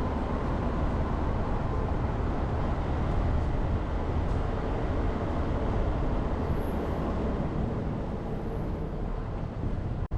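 Jeep Renegade driving along a mountain forest road: a steady low rumble of engine, tyres and wind noise. The sound drops out for an instant near the end.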